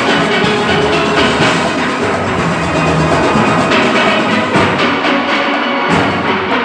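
A large steel orchestra playing: many steelpans together in full ensemble, backed by drums and percussion.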